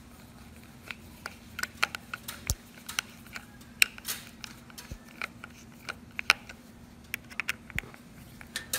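Hand screwdriver driving a screw through a plastic wall-mount bracket into a wall plug, giving a run of irregular sharp clicks and ticks that starts about a second in.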